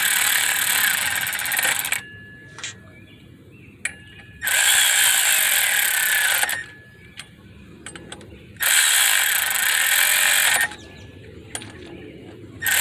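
Hand ratchet wrench clicking fast in repeated bursts of about two seconds with short pauses between, as bolts are run down and tightened by hand.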